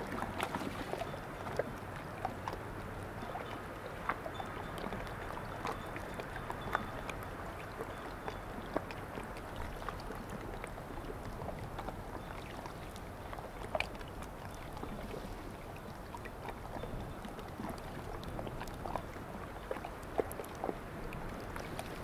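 Calm sea lapping gently on a gravelly beach: a steady, soft wash of small waves with many small splashes and ticks scattered through it.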